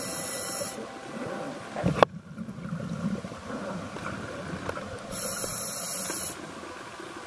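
A scuba diver breathing underwater through a regulator: two hissing inhalations of about a second each, one at the start and one about five seconds in, with a low, uneven rumble of exhaled bubbles between them.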